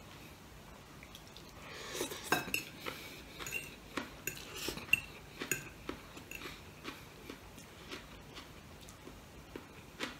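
A fork clinking and scraping on a plate while noodles are gathered, heard as a run of sharp taps and clicks that starts about two seconds in and is busiest over the next four seconds, then thins out.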